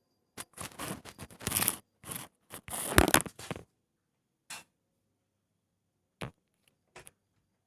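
Scratching and scraping noises from a cat moving about inside a cat house, in a run of bursts over about three seconds, followed by three short knocks.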